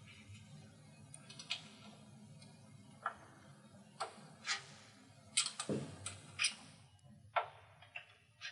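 Scattered light metallic clicks and taps, about ten at irregular intervals, from set screws being finger-tightened into a garage door torsion spring winder on its steel shaft and an Allen wrench being handled.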